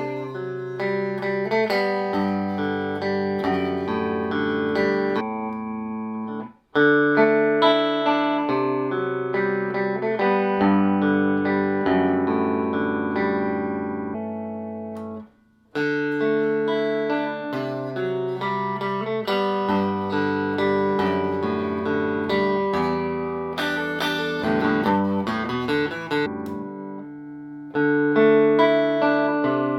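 Fender Telecaster electric guitar played clean through a Fender '57 Tweed Twin tube amp, with no effects, strumming and picking sustained chords. The playing stops for a moment twice, about a quarter and about half of the way through.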